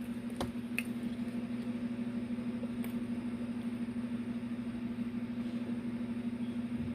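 A steady low electrical or mechanical hum at a fixed pitch, with a few faint short clicks.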